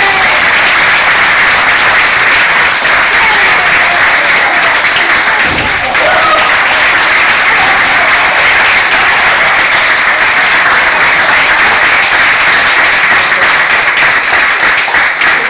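A group of people clapping hands in steady, sustained applause, with a single thump about six seconds in.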